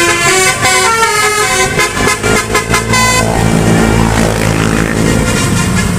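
Bus basuri (telolet) musical horn playing a quick melody of stepped notes. About three seconds in the melody stops and a deeper, steadier horn-like drone with a rumble carries on.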